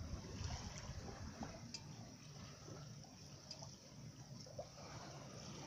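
Faint water trickling and lapping along a sailing yacht's hull as it runs slowly downwind under spinnaker, with a few small drip-like ticks.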